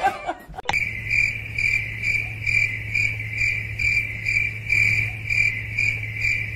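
A cricket chirping steadily, about two to three chirps a second, over a low steady hum.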